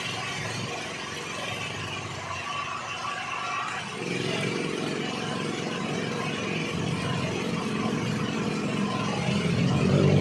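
An engine running steadily, growing louder and deeper from about four seconds in.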